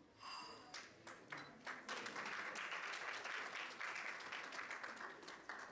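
Audience clapping, scattered at first and swelling into full applause about two seconds in.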